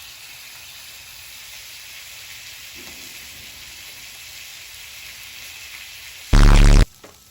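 Steak sizzling steadily on a hot discada. About six seconds in, a brief, very loud blaring blast cuts in for about half a second.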